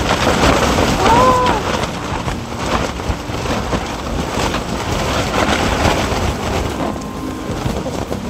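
Strong wind rushing and buffeting the microphone, a loud steady rushing noise, with one short rising-and-falling whine about a second in.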